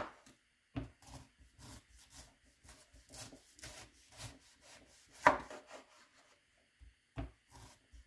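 Chef's knife shredding a raw green cabbage head on a bamboo cutting board: crisp slicing strokes through the leaves, each ending in a knock of the blade on the wood, at about two to three a second and irregular, with a louder stroke about five seconds in.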